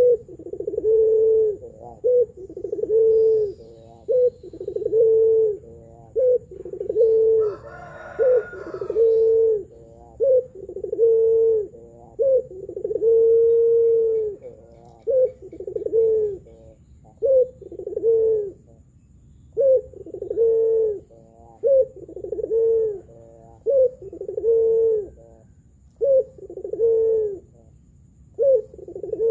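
A caged Barbary dove of the Indonesian 'puter pelung' kind cooing over and over in full voice. Each coo is a short rising note that runs into a low, held hum, about one a second, with a longer drawn-out coo near the middle and a brief pause later on.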